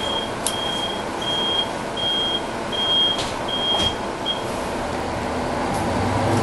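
Bus door warning beeper giving about seven evenly spaced high beeps that stop about four seconds in, over the idle of a Mercedes-Benz O405G articulated bus's diesel engine. The engine starts to pick up near the end, with a few sharp clicks along the way.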